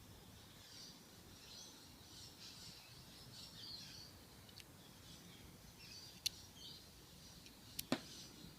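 Faint birds chirping in the background, with a few sharp clicks about six and eight seconds in.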